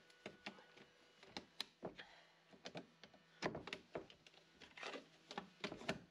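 Screwdriver scraping and levering at the plastic tamper ring on the rim of a metal paint tin: a faint scatter of short clicks, scrapes and creaks, busier in the second half as the ring is worked loose.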